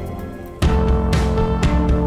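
Background music. A quieter passage dips, then a little over half a second in a louder section starts abruptly, with sustained notes over a steady beat of about two hits a second.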